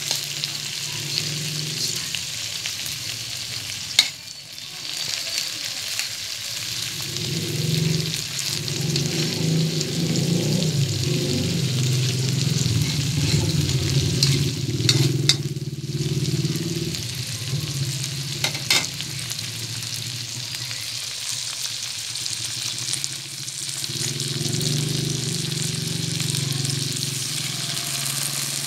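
Shrimp frying in butter and garlic in a wok, a steady sizzle, stirred and scraped with a silicone spatula that gives scattered clicks and knocks against the pan. A low rumble swells up for several seconds at a time.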